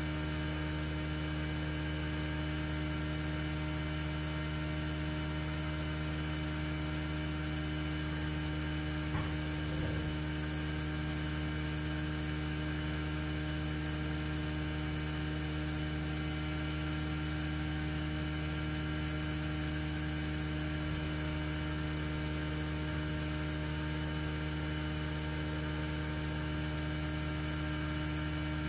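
Steady electrical hum with a stack of overtones, unchanging throughout, with a faint brief sound about nine to ten seconds in.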